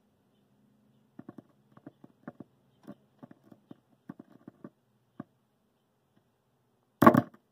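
Small, irregular clicks and scratches of alligator-clip test leads being handled on the metal chassis of a vintage tube radio, over a faint low hum at first. About seven seconds in comes a loud, short crackle.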